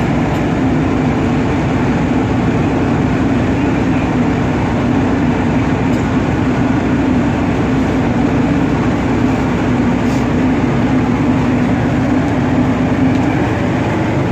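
Ship's engine running steadily: a constant low mechanical rumble with an even hum.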